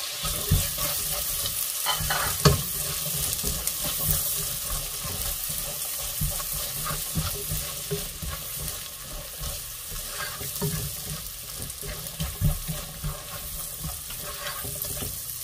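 Diced red onions sizzling in melted butter in a granite-coated nonstick pot while a silicone spatula stirs them, with scattered light taps of the spatula against the pot, the sharpest about two and a half seconds in and again near the end.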